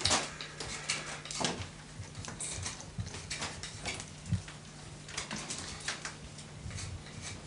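Light scrapes and scattered clicks of a chestnut wood lath being trimmed and handled for a basket, over a steady low hum.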